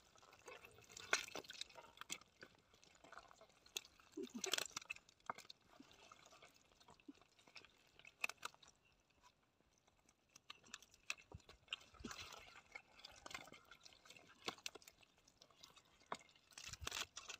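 Wet mud squelching and clicking under gloved hands digging through it. The sounds are faint and scattered, with a few louder clusters.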